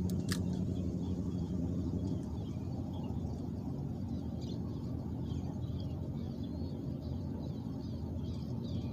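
Small birds chirping faintly and intermittently over a steady low rumble of outdoor background noise; a low hum fades out about two seconds in.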